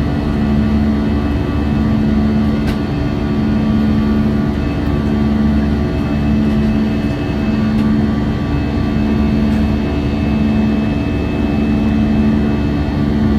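Cabin noise inside an Airbus A320-216: the steady drone of its CFM56 engines and the airflow. One low tone throbs slowly, a little over once a second.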